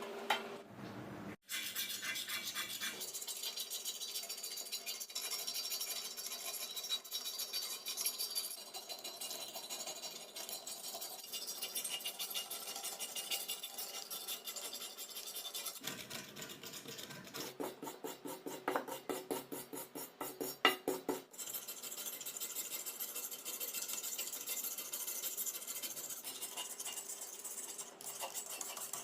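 Quick, scratchy back-and-forth strokes of a metal bicycle frame being abraded by hand to clean off old paint and imperfections, with a stretch of faster, louder strokes past the middle.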